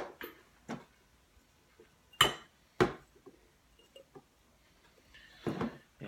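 Zippo lighter with a butane insert being handled: a few sharp metal clicks and clacks, the loudest two about half a second apart a little past two seconds in, then a short rustle near the end.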